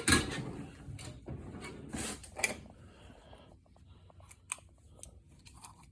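Hand tools being handled: a series of sharp clicks and light knocks, with fainter small ticks in the second half.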